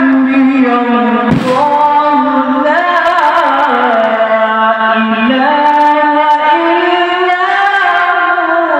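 A man reciting the Quran in the melodic tajweed style. He holds long drawn-out notes and slides and turns between pitches in one continuous phrase.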